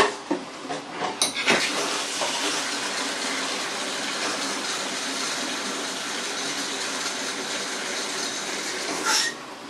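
Water running steadily into the plastic dirty-water reservoir tank of a Bissell ProHeat 2X Revolution Pet carpet shampooer, filling it so it can be rinsed out. It starts about a second in after a few knocks and stops shortly before the end.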